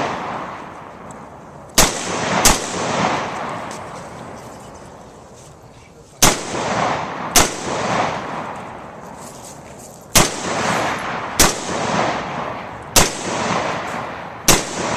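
AR-15 rifle firing eight single shots, loosely in pairs about a second apart with longer pauses between pairs, each shot followed by a long fading echo.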